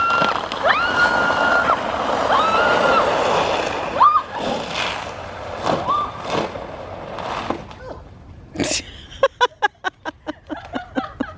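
A woman squealing in long, high held notes as she slides down an icy hill, over a steady scraping hiss of the slide on ice and slush. Near the end come quick bursts of laughter.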